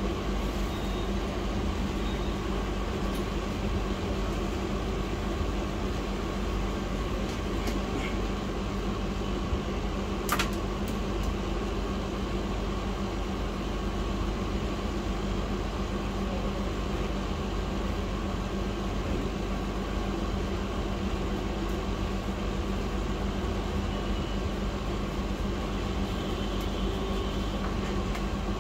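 Steady fan hum with a constant low drone, and a single sharp click about ten seconds in.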